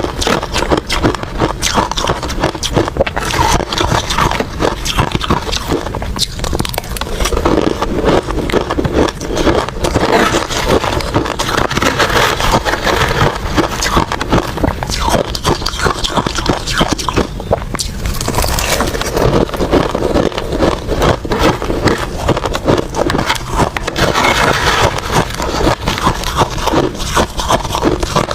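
Ice being bitten and crunched close to the microphone: dense, irregular cracking and crackling of ice between the teeth.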